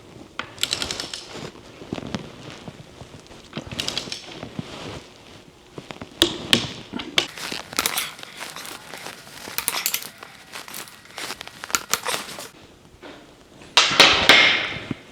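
Wrench clicking in short bursts as the steering knuckle bearing cap bolts are tightened to torque, with metal tool clinks between. A louder rattling burst near the end.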